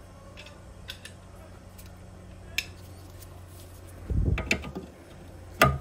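Metal clinks and knocks of a breaker bar and 18 mm socket being handled and fitted onto a suspension nut. A few light ticks come first, then a louder run of knocks about four seconds in, and a sharp clink near the end.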